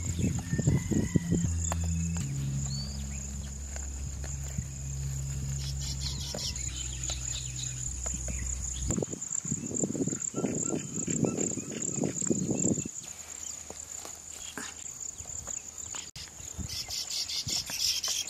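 Insects, crickets, chirring in one steady high tone. For the first half, low sustained tones underneath shift pitch in steps. A run of soft low sounds comes about ten to thirteen seconds in.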